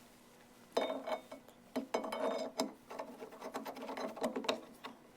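Steel parts of a 1914 Chevrolet steering gear box clicking and scraping against each other as a part is worked into the housing by hand, with short bits of metallic ringing. It starts after a brief pause and stops shortly before the end.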